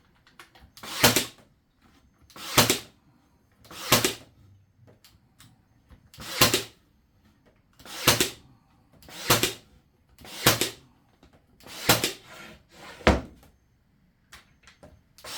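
Cordless brad nailer firing brad nails into wood: nine sharp shots, one every second or so, with one longer pause between the third and fourth.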